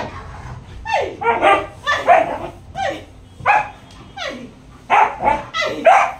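Dogs giving excited play barks and yips while tugging at a toy: a string of short barks, each falling in pitch, coming faster near the end.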